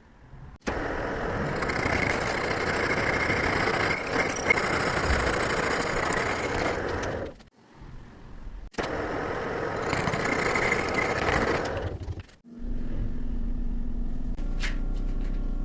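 Metal machining noise: two long stretches of harsh, steady cutting noise that start and stop abruptly, then a steady machine hum near the end.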